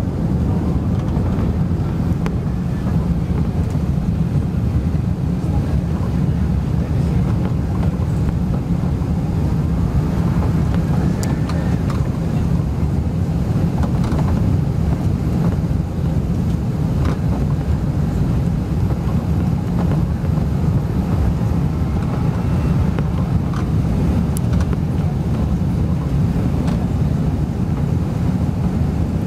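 Airbus A380 climbing out after takeoff, heard from a window seat over the wing: a steady, loud, low rumble of engines and airflow.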